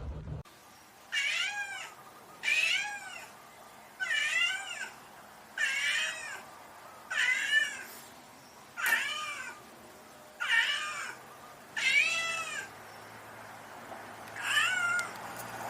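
A domestic cat meowing over and over: nine meows about one and a half seconds apart, each rising and then falling in pitch.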